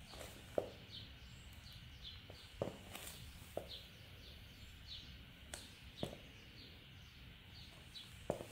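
Jordan Zion 2 basketball sneakers stepping and shifting on a wooden floor: about six soft, irregularly spaced footfalls.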